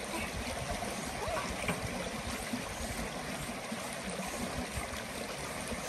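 Shallow creek water rushing steadily over rocks.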